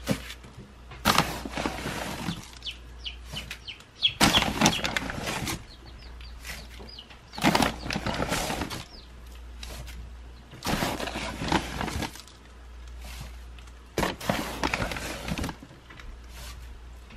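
Plastic scoop digging into a paper sack of poultry feed and pouring it into a plastic bowl, with the sack crinkling: about five rustling, pouring bursts, each a second or so long.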